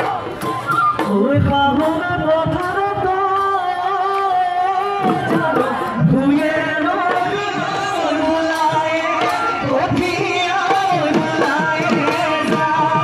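Live Bihu folk music: a voice singing a melody over the beat of dhol drums.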